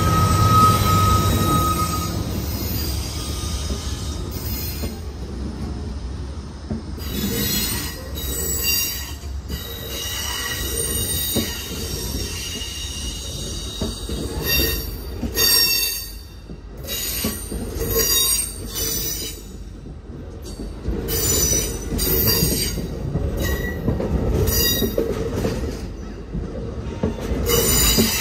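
A passenger train passing close by: a Union Pacific diesel locomotive's engine rumble at the start, then a long string of Amtrak Superliner bilevel cars rolling past, their wheels squealing on and off in high-pitched shrieks over the steady rumble of the trucks on the rails.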